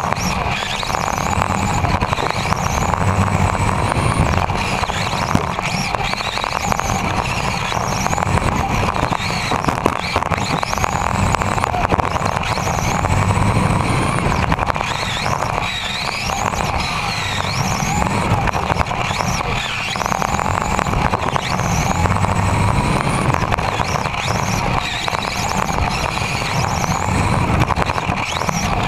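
Onboard sound of an electric RC touring car lapping a carpet track: the motor and gears whine, rising in pitch again and again as the car accelerates, over a steady rumble of the chassis and tyres on the carpet.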